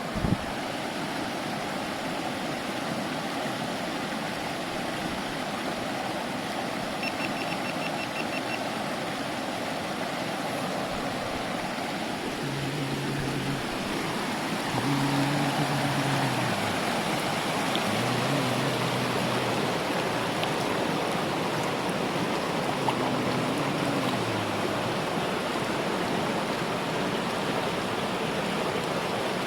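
Putna waterfall and river water rushing steadily, a little louder about halfway through.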